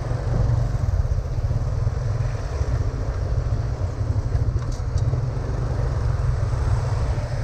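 Vehicle noise from riding along a road: a steady, loud low rumble.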